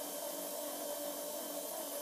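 Steady workshop background hiss with a faint, even hum and no distinct sound events.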